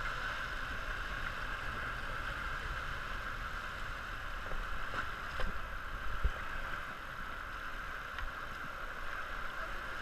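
River whitewater rushing steadily past an inflatable raft, with two short knocks about halfway through.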